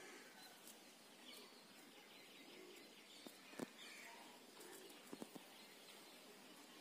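Near silence: faint outdoor garden ambience with faint distant bird chirps and a few soft clicks.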